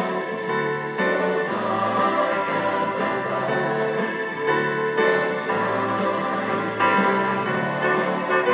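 Mixed choir of young men and women singing together in harmony, holding chords that change every second or so.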